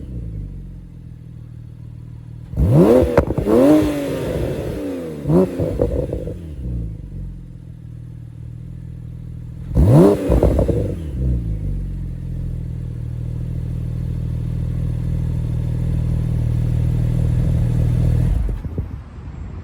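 Exhaust of a 2014 Porsche 911 Turbo's twin-turbo flat-six, fitted with an aftermarket exhaust, revved in several quick blips a few seconds in and again about ten seconds in, each rising and falling back. Between and after the blips it runs steadily, then stops abruptly near the end.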